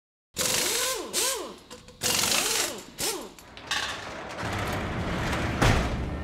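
Designed mechanical sound effects for a title sequence: a run of sharp clanking bursts about once a second, several with whirring tones that sweep up and back down. Then a steadier rattling noise ending in one heavy hit near the end that rings away.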